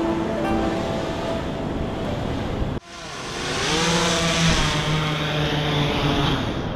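Surf and wind noise, then after a sudden break a drone's motors spin up with a rising whine and settle into a steady pitched buzz with propeller hiss.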